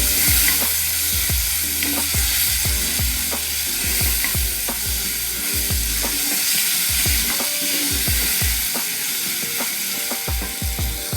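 Onions and garlic-ginger paste sizzling in hot cooking oil in a pan. A spatula stirs them, knocking and scraping against the pan a few times a second.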